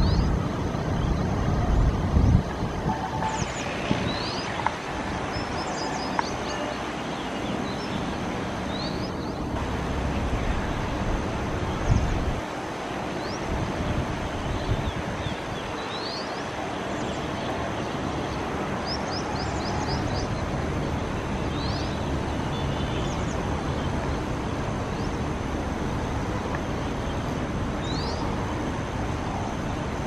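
Steady outdoor background noise with scattered short, high, upward-flicking bird chirps, often in little groups of two to four. A faint steady high tone runs underneath, and there are low thumps about two and twelve seconds in.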